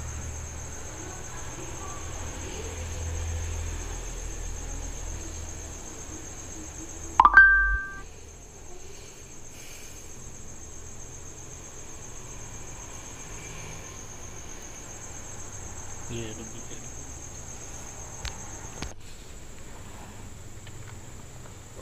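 A steady high-pitched insect-like chirring, with one short loud sound carrying two brief held tones about seven seconds in.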